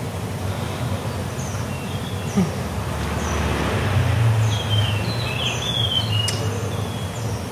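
Small birds chirping with short, repeated calls, about one or two a second, over a low rumble that grows louder in the middle, with a brief click near the end.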